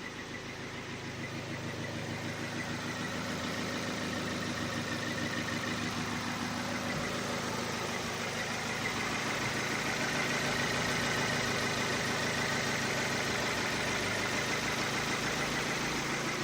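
Ford Focus 2's 1.6-litre 100 hp engine idling with a fast, even knock running through it: the engine knock the owner is recording.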